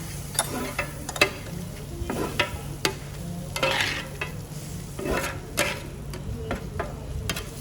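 Irregular scraping and knocking of a utensil against a pan while food is stirred, over a steady low hum.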